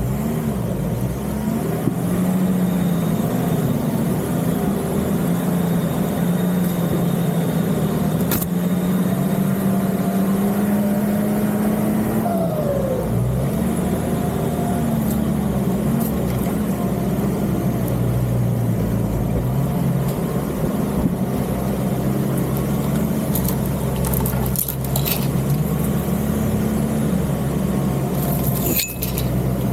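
Nissan Patrol Y61's engine running at low, changing revs, its pitch dipping and climbing again about twelve seconds in, with a few sharp knocks, most of them near the end.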